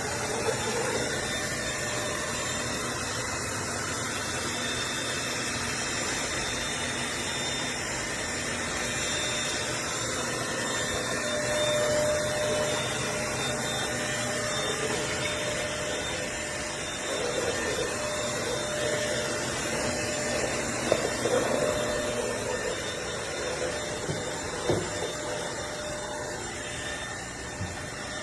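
Eureka NES215A Blaze cordless stick vacuum running steadily over a high-pile area rug, an even whirring hiss with a few sharp clicks in the later part.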